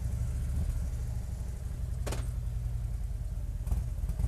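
Harley-Davidson touring motorcycle's V-twin engine idling just after being started, a steady, lumpy low rumble. A faint click comes about two seconds in and again near the end.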